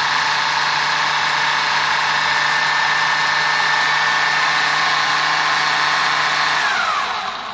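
Wltoys 12628 6x6 RC car's 540 brushed DC motor and drivetrain spinning all six wheels in the air with no load, a loud, steady high whine. Near the end the whine drops in pitch and winds down to a stop.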